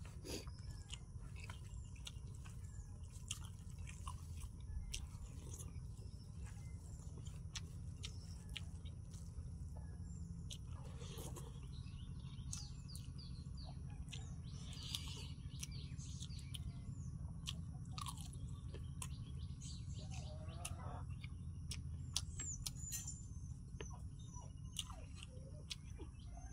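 Close-miked eating sounds: a man mixing rice and curry by hand on a banana leaf and chewing with his mouth, with frequent small clicks and crunches. Birds chirp now and then over a steady low background hum.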